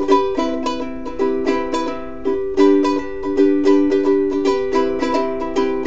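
Ukulele strumming chords in a steady rhythm, an instrumental break with no singing.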